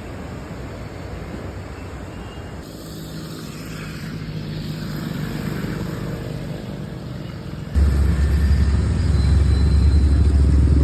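A motor vehicle engine running nearby, getting louder, then a loud low rumble that starts suddenly about eight seconds in.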